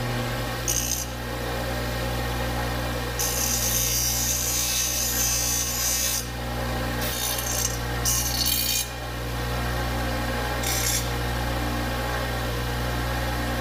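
Bench grinder running with a steady motor hum while a cut aluminum strip is pressed against the spinning wheel in several grinding passes, the longest lasting about three seconds. The edges are being ground smooth after cutting.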